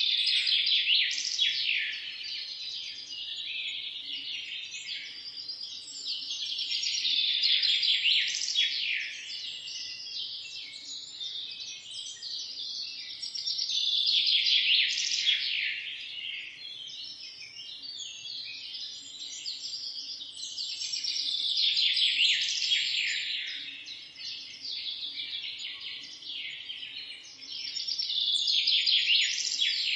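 Dense morning chorus of many small songbirds chirping and twittering over one another, swelling louder and fading back in waves about every seven seconds.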